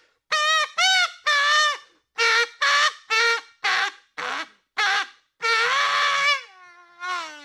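Comedy sound effect: a run of short, wavering horn-like honks, quick one after another, then a longer note that slides downward in steps near the end.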